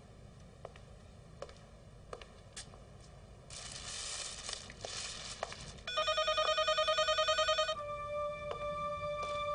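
An electronic telephone ringer trilling in a fast warble for about two seconds, starting about six seconds in, followed by a steady held tone. Before it come scattered faint clicks and a few seconds of rustling hiss.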